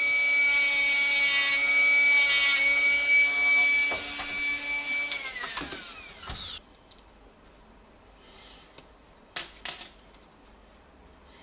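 Small electric rotary tool running at a steady high speed, then spinning down and stopping about six seconds in. A couple of light clicks follow near the end.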